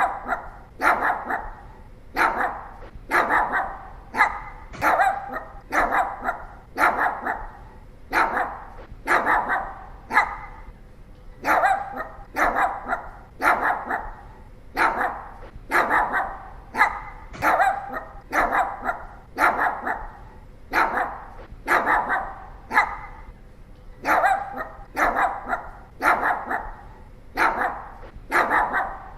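Pomeranian barking repeatedly, a little over one bark a second, with a couple of brief pauses.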